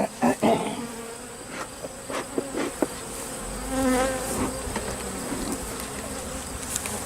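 Swarm of honey bees buzzing around an open hive, with one bee passing close to the microphone about four seconds in, its buzz wavering in pitch. A few light knocks come in the first three seconds.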